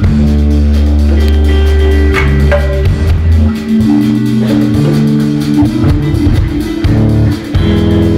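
Live rock band playing: electric guitars over a drum kit, with strong sustained low notes underneath.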